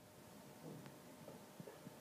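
Near silence: room tone, with a few faint soft knocks.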